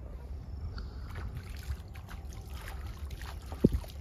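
Wind buffeting an outdoor microphone as a steady low rumble, with light handling clicks and one sharp thump about three and a half seconds in. A thin high whine stops within the first second.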